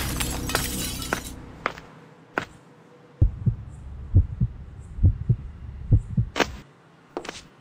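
A sharp shattering crash as the music cuts out, its noise dying away over about a second, then a few sharp clicks. About three seconds in, a slow heartbeat sound effect starts: four double thumps about a second apart, followed by a few more clicks near the end.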